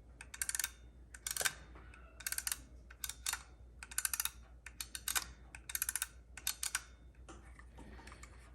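Number keys of an Adder column adding machine pressed one after another, about eight times, each press a quick run of ratcheting clicks as its lever steps the toothed wheel along.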